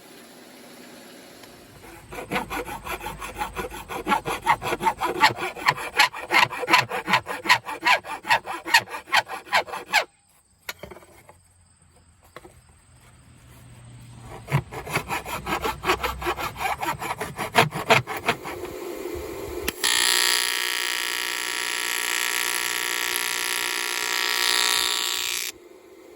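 A hand tool scraping back and forth over metal in quick rhythmic strokes, about three a second, stopping briefly and starting again. Near the end a steady pitched machine sound runs for about five seconds and cuts off suddenly.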